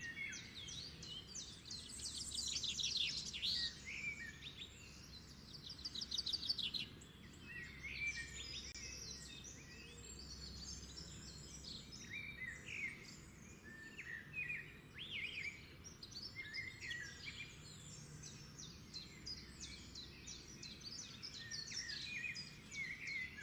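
Wild birds singing and chirping, several calls overlapping, with quick trilled runs of notes near the start, over a faint low rush of running water.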